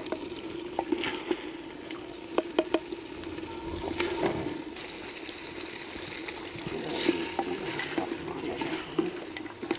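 Metal ladle scraping and clinking against a clay handi as cooked mutton is dished out, a few sharp clicks in the first half, over a steady watery hiss.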